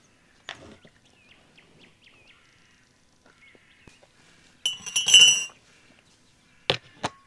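Tableware clinking and knocking as a meal is set out: a loud ringing clink about five seconds in, then two sharp knocks near the end. Faint bird chirps in the first couple of seconds.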